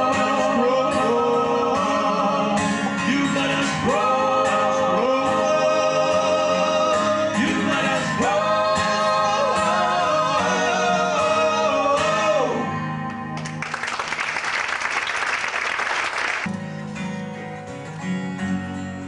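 Vocal group singing long held harmony notes with vibrato over acoustic guitar, ending about twelve seconds in. A short burst of applause follows, then acoustic guitar strumming begins.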